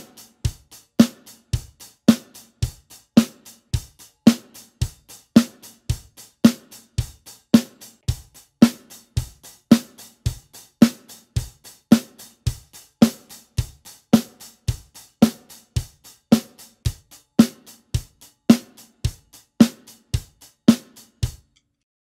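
Drum kit played in a steady basic beat: bass drum, snare drum and hi-hat, about two strokes a second. The snare and hi-hat are struck first with Vic Firth 5B hickory sticks and, from about halfway through, with Promark 5B FireGrain sticks. The beat stops abruptly near the end.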